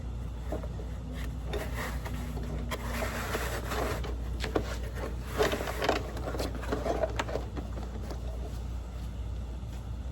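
Costume fabric rustling and scraping in irregular bursts as it is pulled onto the animatronic's foam legs, with a few light clicks and knocks from handling, over a steady low hum.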